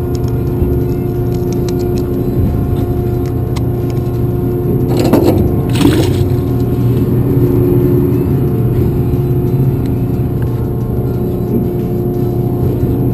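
A fishing boat's engine running with a steady drone. About five seconds in there is a brief noisy clatter, as a caught fish goes into a plastic bucket.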